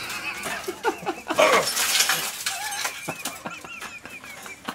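A man's high-pitched laughter, in quick repeated bursts, mixed with a few light clinks and knocks from the broken glass and plastic of a smashed CRT monitor.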